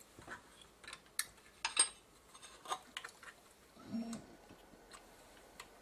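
Scattered small clicks and taps of electronic components and hand tools being handled on a workbench, as new electrolytic capacitors are readied for fitting into a circuit board. The taps are irregular, a few to the second, with two louder ones in the first two seconds.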